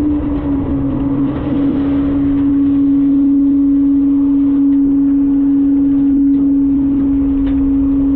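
Front-load garbage truck's engine and hydraulic system running, with a steady loud hum over a low rumble.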